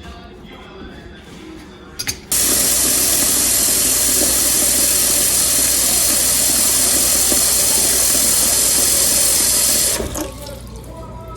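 Kitchen sink faucet turned on full, water running steadily into the sink, then shut off abruptly near the end.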